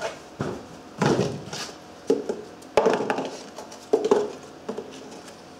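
Handling noise from taking apart a mower seat on a plywood workbench: irregular knocks, scrapes and rustles as the foam cushion and the wooden seat board with its metal brackets are lifted and moved, with one sharp click a little past the middle.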